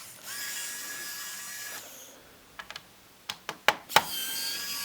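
Small electric screwdriver whining steadily as it backs out the bottom-panel screws of a Lenovo G50 laptop. It stops briefly, with several sharp clicks of metal screws and the tool against the plastic case, then the whine starts again near the end.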